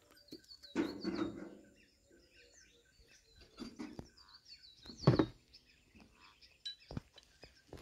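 Small birds chirping repeatedly, short quick notes, with a few knocks over them; the loudest knock comes about five seconds in.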